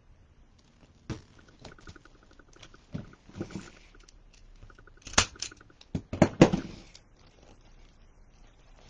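Crafting handling noise: deco mesh and ribbon rustling, with scattered clicks and knocks as pliers and other hand tools are handled and set down on a cutting mat; the loudest knocks come about five and six and a half seconds in.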